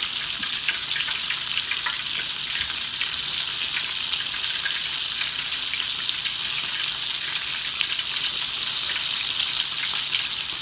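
Hot oil frying: a steady sizzle with fine crackling.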